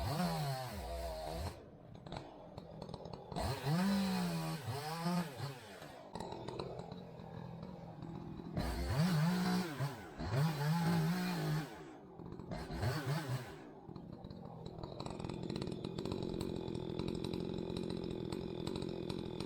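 Two-stroke chainsaw revved up and down in several spells, its pitch rising and falling, then settling to a steady idle for the last five seconds or so.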